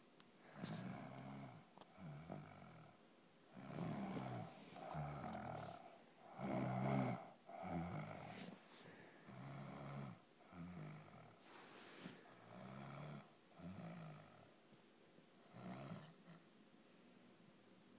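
Loud, irregular snoring: a string of rasping snores about a second apart, the loudest about seven seconds in, dying away near the end.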